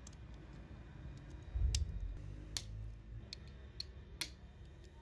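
Small hard plastic clicks and taps as a seat is pressed into a model car's plastic interior tub: about five sharp clicks, with a dull low bump of handling near the start of them.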